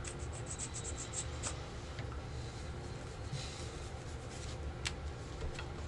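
Playing cards being handled and laid on a table: a quick run of light clicks, a soft brushing slide, then a couple of sharp taps near the end.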